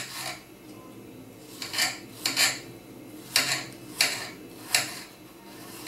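Kitchen knife chopping a peeled apple into cubes on a cutting board: a handful of short, separate knocks of the blade against the board at an uneven pace.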